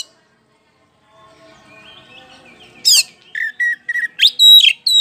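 Oriental magpie-robin singing: after a pause, a sharp falling whistle about three seconds in, then a quick run of short, lower chirps and loud, high whistled notes near the end.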